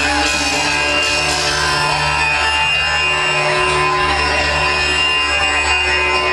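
Live concert music played loud through a venue sound system: a steady deep bass under long-held higher tones.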